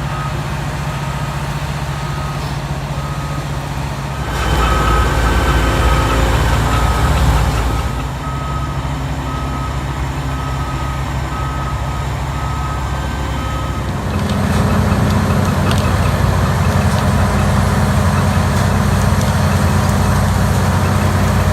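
Heavy machine engine running steadily, with a backup alarm beeping about once a second for the first two-thirds. The engine gets louder about four seconds in, eases back, and gets louder again near two-thirds through as the beeping stops.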